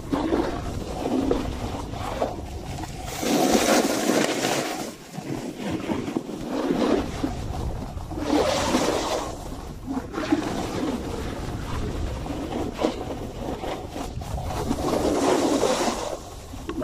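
Snowboard edges scraping and hissing across packed snow in repeated turns, each turn a swell of noise several seconds apart, over a steady rumble of wind on the microphone.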